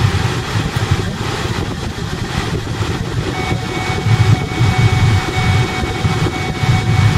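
Car driven on a sandy dirt road, heard from inside the cabin: the engine running under a steady low rumble of tyres on the rough surface. A thin, steady high tone joins in about halfway through.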